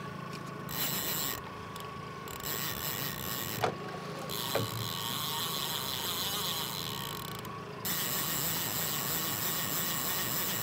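Fishing reel being cranked with short mechanical clicks as line is wound in against a hooked chinook salmon, over a steady low hum.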